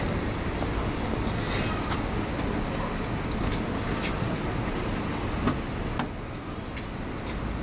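Steady low rumble of vehicle and street-traffic noise, with a couple of faint clicks near the end.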